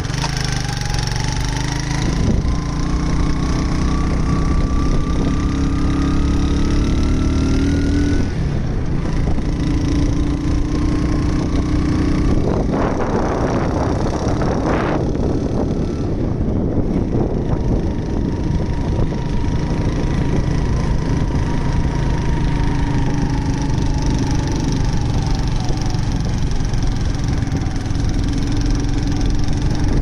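Motor vehicle engine running while driving, its pitch rising over the first several seconds as it accelerates and then holding steady. There is a brief rush of noise about halfway through.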